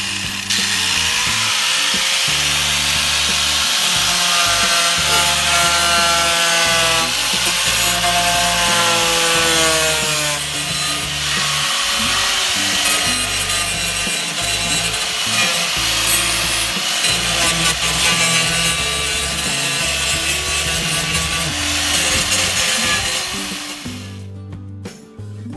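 Handheld power grinder grinding rust from car-body sheet metal: a continuous loud grinding hiss, with a whine that slides down in pitch several times about halfway through, stopping about a second before the end. Background music with a bass line plays underneath.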